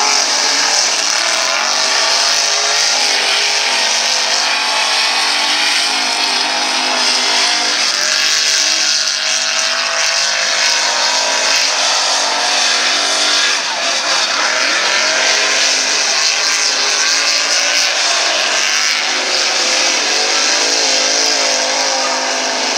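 Mud-racing trucks' engines revving hard at high rpm, the engine pitch rising and falling as the trucks power through mud and dirt, over a steady hiss.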